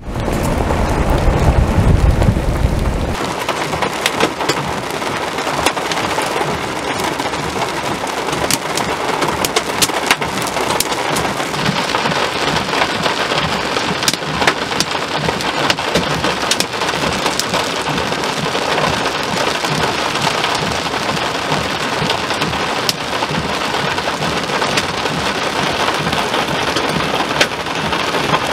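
Heavy thunderstorm rain pelting a hard surface: a dense, steady hiss dotted with many sharp individual hits. A deep low rumble in the first three seconds cuts off abruptly.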